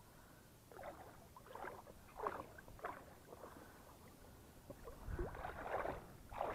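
Water splashing in irregular short bursts as a hooked striped bass thrashes at the surface during the fight, louder and closer together near the end.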